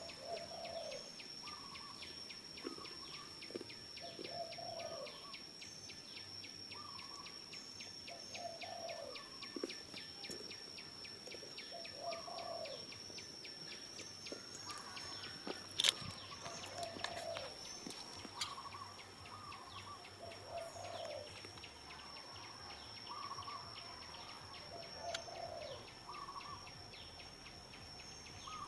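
Forest ambience: insects keep up a steady high-pitched drone with a fast ticking pulse, while a bird repeats a short, low call every few seconds. A single sharp click stands out about halfway through.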